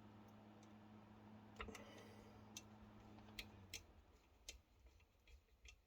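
Faint, irregular clicks and ticks of a screwdriver and small parts being handled while screws are fitted, over a low hum that cuts off about three and a half seconds in.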